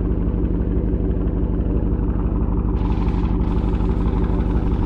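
Car engine idling steadily, with a brief hiss about three seconds in.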